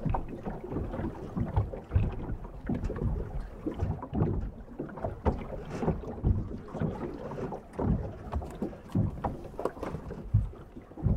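Small waves lapping and slapping at the waterline beside a stationary rigid inflatable boat, heard from a microphone right at the water surface: irregular splashes and low thumps, with wind buffeting the microphone. No engine is running.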